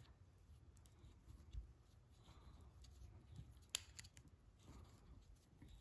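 Near silence with a few faint, sharp metal clicks from a chain breaker and roller chain as its bolt is slowly turned to press a link pin back into the chain; the sharpest click comes almost four seconds in.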